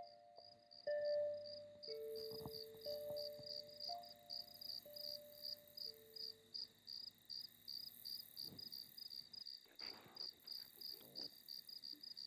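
Cricket chirping steadily, about three to four short high chirps a second, in a film soundtrack played over loudspeakers. A few soft, held music notes sound in the first few seconds.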